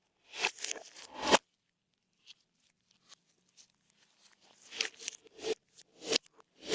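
Slime being stretched and folded by hand, in short sticky bursts: several in the first second and a half, a pause, then more from about four and a half seconds in.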